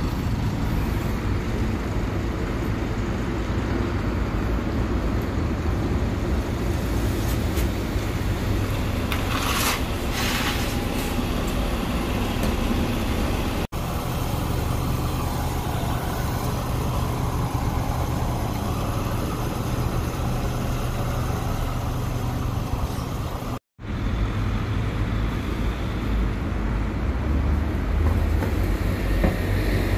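City bus engines rumbling steadily as buses idle and pull away past the roadside, with street traffic noise and a brief hiss about ten seconds in. The sound cuts out briefly twice.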